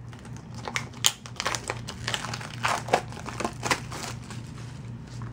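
Plastic shrink wrap being torn and peeled off a Blu-ray case: irregular crinkling and crackling that thins out near the end.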